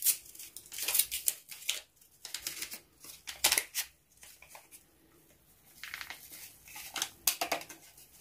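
A small paper sachet of baking powder being handled and opened, with crinkling rustles and short tearing sounds in scattered bursts.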